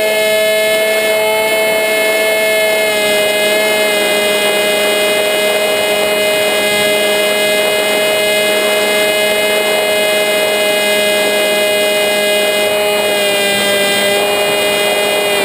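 A model flying wing's motor and propeller whining steadily in flight, heard from the camera on board the plane, its pitch holding nearly constant with small wavers, over a rush of air.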